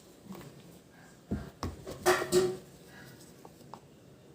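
Handling noises of small objects on a table: a few separate clicks and knocks, the loudest cluster about two seconds in, then a couple of faint ticks.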